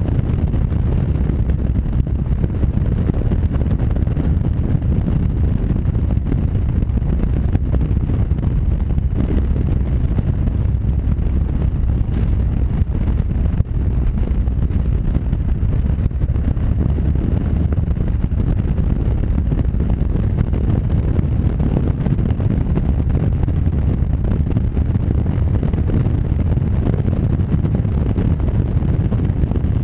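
Wind buffeting the microphone of a motorcycle-mounted camera at steady road speed, blended with the Honda Varadero's V-twin engine running underneath. The rush is steady and even throughout.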